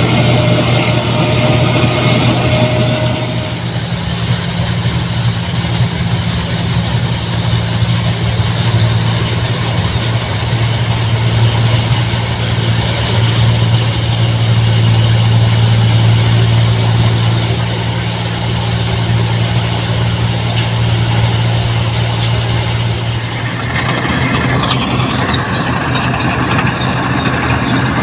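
Rice combine harvester's diesel engine running steadily with a low drone. About twenty-three seconds in the sound shifts abruptly and a brighter hiss joins the drone.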